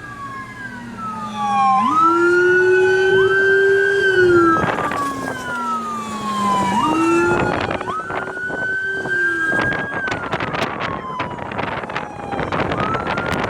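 Emergency vehicle sirens wailing, taken for ambulances: two sirens overlapping, each sweeping up quickly, holding, then sliding slowly down, about every five seconds. Rough crackling noise runs through the second half.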